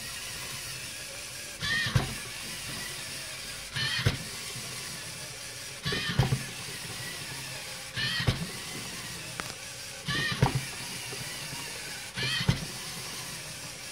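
LEGO EV3 walking robot's servo motors whining in short bursts about every two seconds, each burst with a clack or two of plastic parts as a step is taken. A steady hiss runs underneath.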